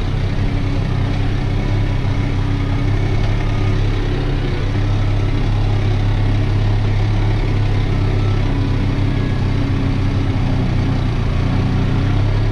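New Holland TT4.65 tractor's diesel engine running steadily while pulling a mounted plough through the soil, heard from inside the cab.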